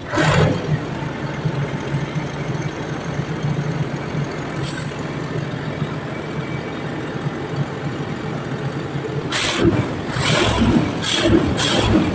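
Diesel truck engine idling steadily with a low, even hum. Several short louder bursts come near the end.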